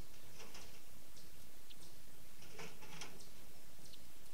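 Faint, high ticks about one and a half times a second, with a couple of brief rattles of screws and boards being handled about half a second and about two and a half seconds in.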